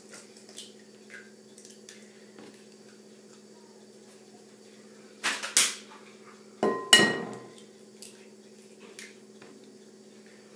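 Eggs knocked against the rim of a glass mixing bowl to crack them open: a couple of sharp knocks about five seconds in and another cluster about seven seconds in, the glass ringing briefly, with a few faint clicks of shell and fingers between.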